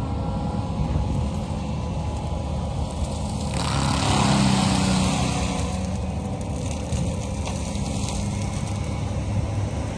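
A vehicle's engine running steadily as it moves slowly along a dirt track. A broader rushing noise swells for about two seconds near the middle.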